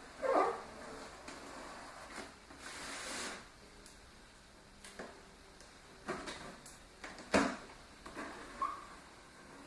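Cardboard shipping box being handled and opened by hand: rustling and scraping with scattered light knocks, a longer rustle about three seconds in, and a sharp knock about two-thirds through.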